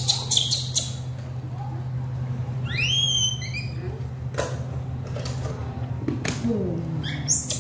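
Baby monkey giving a quick run of high-pitched, arching squeaks about three seconds in, and one more near the end. A few sharp clicks at the start, over a steady low hum.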